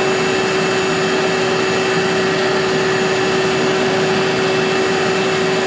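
Shop vac running steadily, drawing air through a drill press dust collection hose. Its motor gives an even whine over a rush of air.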